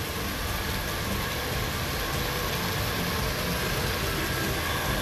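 Heavy rain pouring down onto a flooded street and parked cars, a steady dense hiss.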